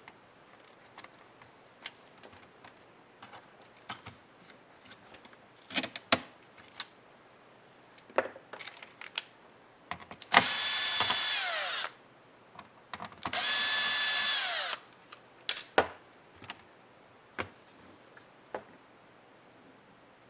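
Small electric screwdriver running in two bursts of about a second and a half each, a few seconds apart, its whine dropping in pitch as it stops each time, backing screws out of a laptop. Light clicks and taps of tools and plastic parts being handled come before, between and after.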